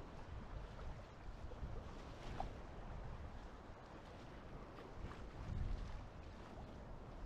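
Wind noise on the microphone over choppy sea, with water splashing and lapping around a sea kayak as it is paddled; the wind noise swells briefly about five and a half seconds in.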